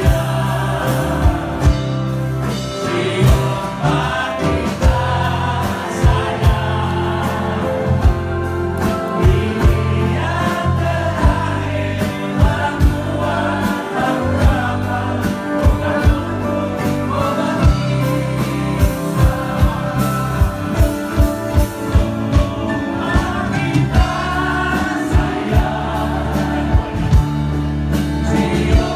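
A live band plays a song with a steady drum beat and bass. Several voices sing together into microphones over it.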